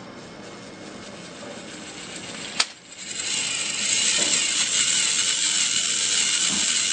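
Battery-powered toy train's small motor and gears whirring and rattling along its track. A sharp click comes about two and a half seconds in, and after it the whirring runs louder and steadier.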